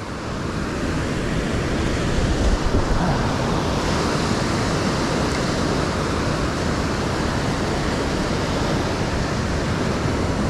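Steady rush of surf breaking and washing up a sandy beach, with wind rumbling on the microphone.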